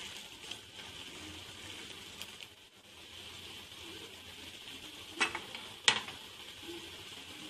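Sugar syrup for jalebi boiling hard in a pan, a steady sizzling hiss. A ladle knocks sharply against the pan twice about five seconds in.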